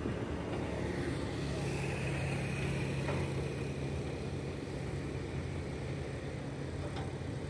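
Heavy construction machinery engines running steadily at a distance, a low drone with a faint high whine above it.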